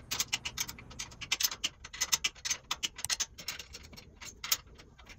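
Ratchet wrench clicking in quick runs of sharp metallic ticks as nuts are tightened on the boat trailer's winch-post U-bolts.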